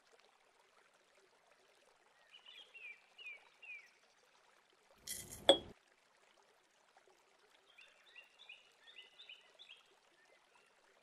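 Faint series of short bird chirps over a soft hiss. About five seconds in comes a brief, sharp clink and rattle as dried herbs are tipped from a small porcelain bowl into a glass jar mug.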